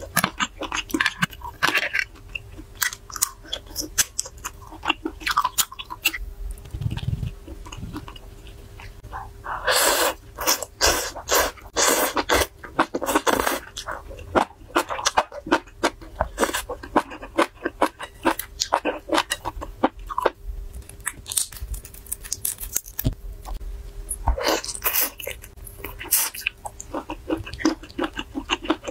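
Close-miked eating sounds: chewing and crunching with many sharp clicks and wet smacks, thickest in two long clusters, one around the middle and one near the end. A faint steady hum sits underneath.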